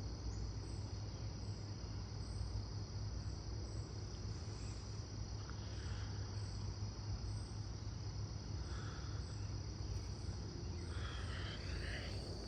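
Insects chirping outdoors: a steady high drone with short, higher chirps repeating about one and a half times a second, over a constant low rumble.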